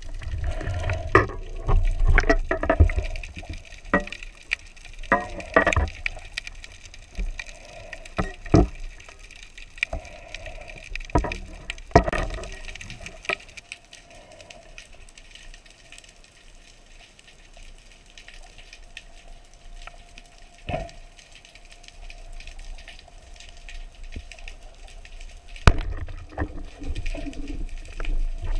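Underwater sound of a diver moving with a speargun: water rushing and a string of sharp knocks from the gun and gear during the first half, the loudest near the middle. Then comes a quieter stretch with a faint steady hum, and one more sharp knock near the end.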